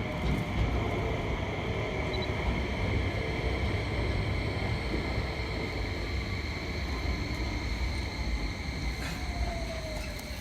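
Electric train running through the station: a steady low rumble with a constant high electrical whine, and a falling tone near the end as it slows.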